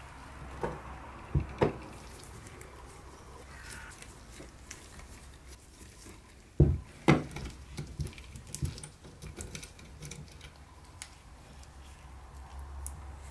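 Screwdriver turning out the small rusty screws of the metal mirror clips on a wooden cabinet door: scattered light clicks and scrapes of metal on metal and glass, with a few sharp knocks in the first two seconds and the two loudest about six and a half and seven seconds in.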